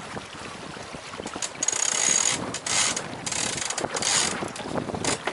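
Sailboat deck hardware on a Beneteau First 20: a line being hauled through pulley blocks with ratcheting, in about four quick pulls in the middle, one with a brief high squeak.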